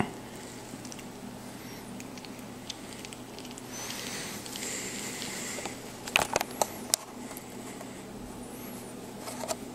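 A newborn sucking on a silicone pacifier: a few small wet clicks and smacks come close together about six to seven seconds in, over a low steady hum, with a soft hiss a little before them.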